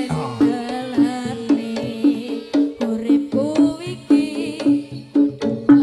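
Live Javanese jaranan music: hand drumming in a steady rhythm under a repeating pitched note, with a singer's melody over it.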